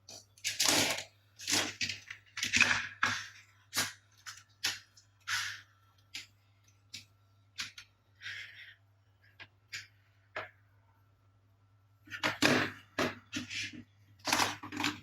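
Toy cars being handled and knocked together on a hard surface: irregular clicks and knocks with a few short rattling clatters, busiest at the start and again near the end.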